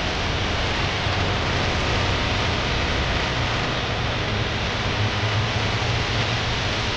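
Steady loud rushing noise with a low hum underneath that grows stronger in the second half.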